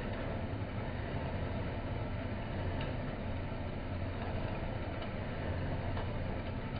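Horizontal metal-cutting band saw running steadily, its blade working down through a bundle of square steel tubing, with a low motor hum under the cutting noise and a faint tick now and then.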